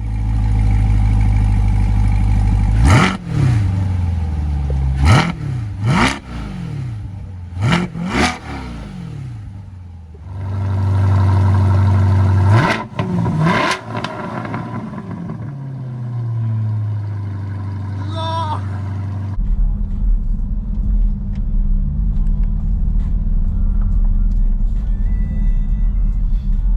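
C8 Corvette V8 through a Tap Speed aftermarket exhaust, idling loud and low, then revved in a series of sharp throttle blips that rise and fall quickly. A steadier low rumble follows in the last several seconds.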